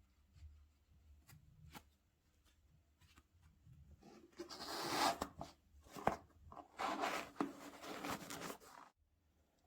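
Packaging rustling and crinkling as sneakers are handled close to the microphone. Faint clicks come first, then about five seconds of dense rustling with sharp clicks, which stops abruptly near the end.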